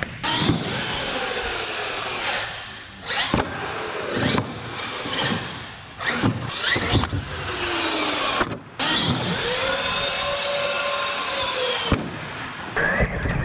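Radio-controlled monster truck's electric motors whining, rising and falling in pitch as the truck accelerates and slows, with tyre and chassis noise and several sharp knocks as it hits the ramps and lands.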